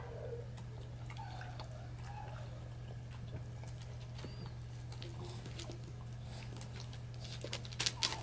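A French bulldog sniffing and snuffling at a raw sardine on loose stones, with a few sharp clicks of stones near the end as she picks the fish up, over a steady low hum.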